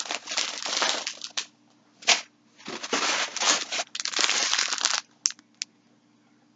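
Plastic packaging crinkling as yarn skeins are handled, in two long rustling stretches with a short crackle between them, then two light clicks.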